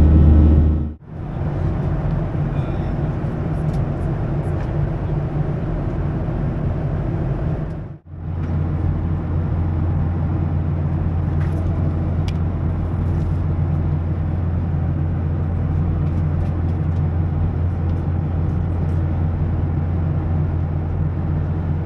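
Boeing 737-700 airliner cabin noise in flight: a steady low drone. It breaks off briefly about a second in and again about eight seconds in.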